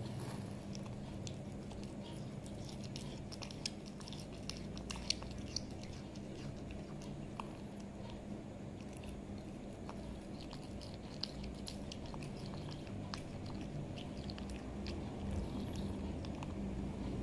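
A cat licking and chewing at raw chicken: scattered small wet clicks of its tongue and mouth on the meat, over a steady low hum.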